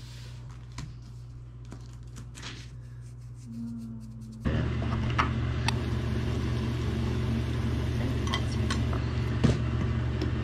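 Light rustling and taps as a sheet of baking paper is smoothed flat over a table, under a low hum. About four and a half seconds in, a louder steady drone sets in, with a few sharp clinks and scrapes as food is scraped from a pan into a ceramic bowl and mixed with a metal fork.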